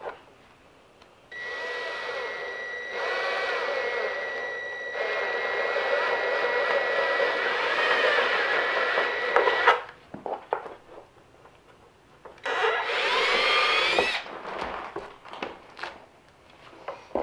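Cordless drill boring a 1/4-inch through hole in the toboggan's plastic base for the hauling crossbar: a steady, high-pitched run of about eight seconds that gets louder as it goes, then stops suddenly. A few knocks follow, then a second, shorter run whose pitch rises, then more handling knocks.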